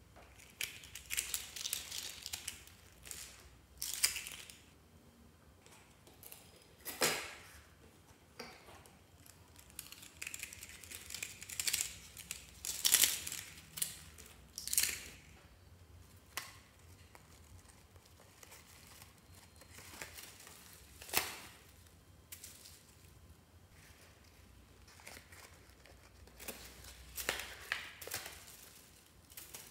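Small plastic containers being twisted open and handled, with irregular crinkling and rustling and a handful of sharp clicks, and quiet gaps between them.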